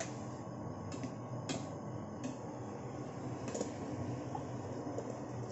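Metal spoon clinking a few times against a stainless steel pan while stirring long beans and eggplant in coconut milk, over a steady low hum.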